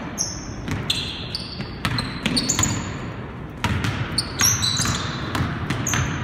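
Basketball bouncing on a hardwood gym floor, with sneakers squeaking in short, sharp chirps many times over as players cut and stop.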